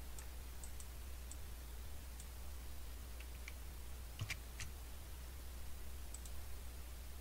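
Faint, scattered clicks of a computer mouse as text is selected and copied, with two sharper clicks a little past the middle, over a low steady hum.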